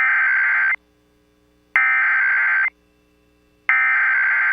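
Emergency Alert System SAME header: three bursts of screechy digital data tones, each just under a second long and about a second apart. This is the coded header that opens an EAS activation, here for a child abduction emergency (AMBER Alert).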